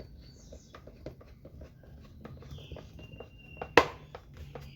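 Light clicks and rustling from handling the plastic blender housing and a small screw during reassembly, with one sharp click a little before the end.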